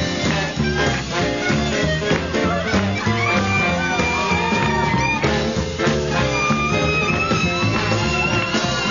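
Swing jazz played by a band, with a steady beat and long held melody notes.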